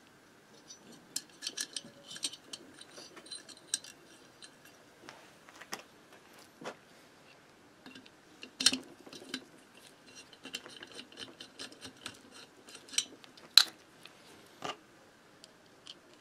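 Small metal clinks and clicks of nuts and a hand tool handled against a finned aluminium moped cylinder head while the nuts are fitted onto the head studs; two louder clinks come about halfway through and a few seconds before the end.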